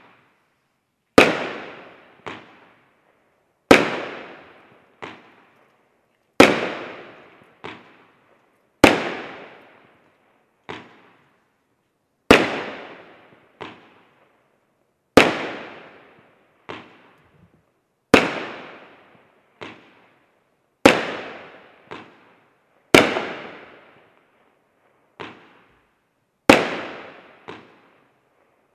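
A 20-shot firework battery (Profi Line 8.13) firing shot after shot, a loud bang every two and a half to three seconds, each trailing off and followed about a second later by a fainter bang.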